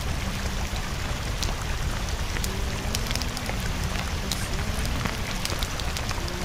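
Steady rain-like hiss with many scattered crackles, over a faint pitched tone that drifts underneath.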